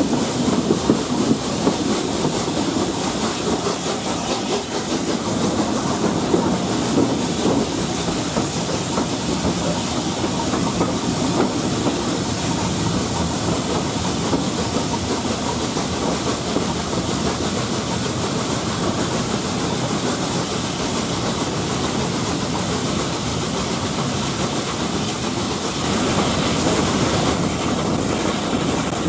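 Steam train at speed behind LNER A4 locomotive 4464 Bittern, heard from the first coach with wind rushing past: a steady rumble and clatter of wheels on rail, with steam hiss. It grows a little louder near the end.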